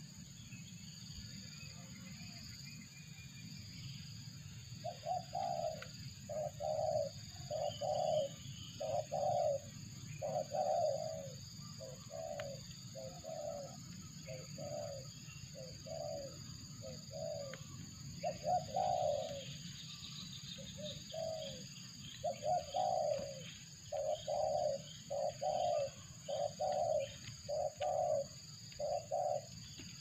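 Spotted dove cooing: a long run of short coos, about one a second, starting about five seconds in and going on with a few brief pauses.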